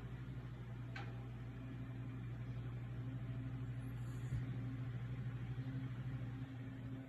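French bulldog snoring: a steady, low, fluttering rattle that runs on without a break.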